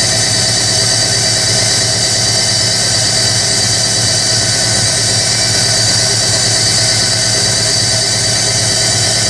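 Hoover Electronic A3172 washing machine spinning between rinses, a steady loud run of motor whine and high rushing hiss over a low hum, with the load slightly unbalanced.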